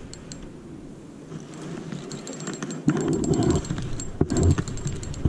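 Spinning reel clicking in quick irregular ticks as it is worked against a hooked carp, the clicks growing denser about two seconds in. From about three seconds in, a louder low rushing noise joins them.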